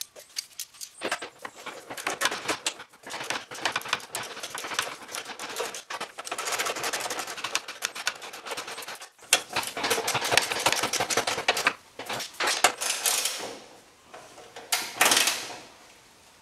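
Socket ratchet clicking rapidly in runs with short pauses, running down the bolts of a radiator grille header panel.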